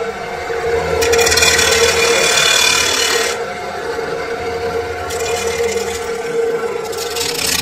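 Abrasive cut-off saw running with a steady whine, its wheel grinding into steel twice: about a second in for two seconds, then again from about five seconds in, each time with a loud harsh hiss.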